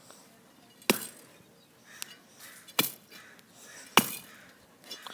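Three loud, sharp impacts: a heavy object being struck down hard against something. They come about a second in, near three seconds and at four seconds, each with a short ring after it, and there is a lighter knock in between.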